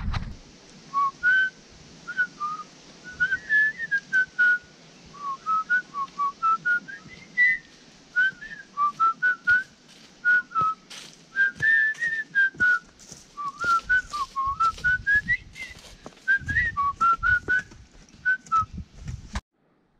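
A person whistling a tune: short notes rising and falling in phrases, with scattered clicks underneath. It cuts off suddenly near the end.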